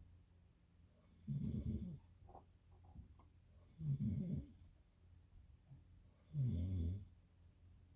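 Snoring: three snores in a steady rhythm, one about every two and a half seconds, with quieter breathing in between.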